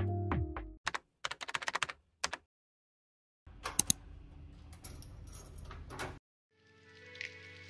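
Music ends within the first second. Then comes a quick run of light keyboard-typing clicks, lasting about a second and a half, followed by faint room sound with a couple of clicks. Music comes back near the end.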